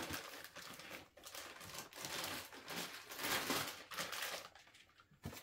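Plastic wrapping crinkling and rustling in irregular handfuls as it is pulled off a router spindle by hand, loudest about three seconds in.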